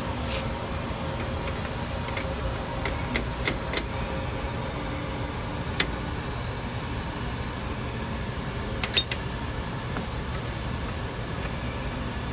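Sharp metallic clinks and clanks of a steel babbitt-pouring jig's clamps and levers being set by hand, in a few quick groups: several about three seconds in, one about six seconds in and a pair about nine seconds in. A steady low rushing hum runs underneath.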